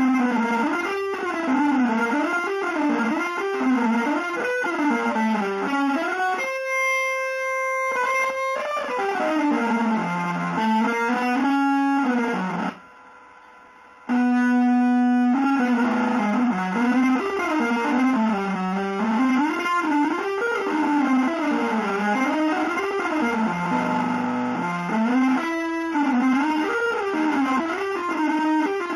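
Solo electric guitar improvising fast, winding melodic runs broken by a few long held notes, with a brief near-pause about thirteen seconds in.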